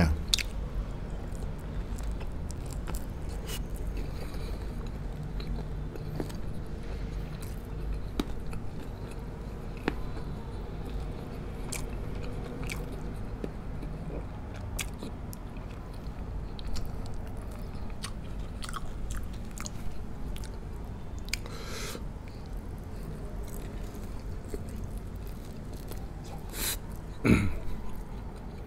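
Close-up chewing and biting of coconut-braised pork ribs, a run of small wet mouth clicks and crunches. There is one short, louder sound near the end.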